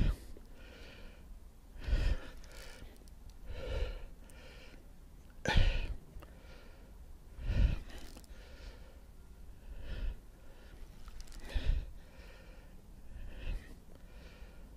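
A man's short, heavy breaths or exhalations, about one every two seconds, from the effort of playing a hooked pike.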